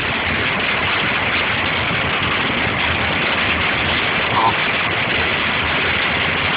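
Steady rushing noise inside a car driving on rain-soaked, flooded roads: tyres on water and rain on the car. A brief high squeak sounds about four seconds in.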